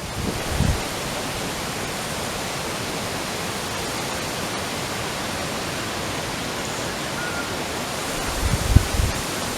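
Strong wind blowing steadily, an even rushing hiss, with a few low buffeting thumps on the microphone near the end.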